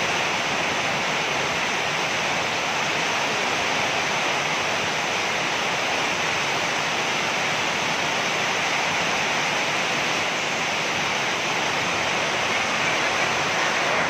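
Heavy tropical downpour: a steady, unbroken rush of rain pouring onto flooded ground and roofs, driven by strong wind.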